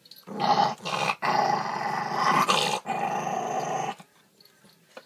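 A dog growling loudly in a rough, snarling bout lasting about three and a half seconds, broken by a few short pauses, then falling quiet. The growl is food guarding over a pork-trotter bone.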